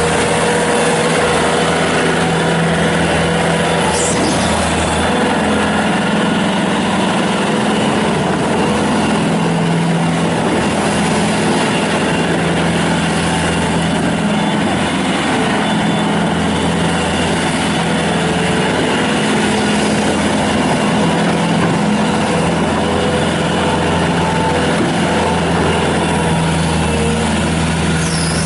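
Bobcat S300 skid steer loader's Kubota 81 hp turbo diesel running steadily as the machine is operated, its pitch shifting a little up and down.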